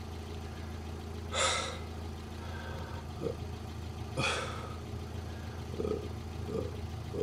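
Steady low hum of a car cabin, with two short, sharp breaths or exhales about a second and a half and four seconds in.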